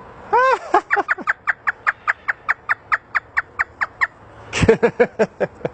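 African grey parrot imitating a hysterical laugh: a fast run of about twenty short pitched hoots, around five a second, each sliding down in pitch, then a few louder, lower cackles near the end.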